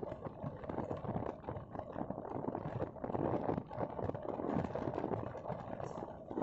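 Uneven, fluctuating low noise of a vehicle on the move: wind buffeting the microphone mixed with road noise.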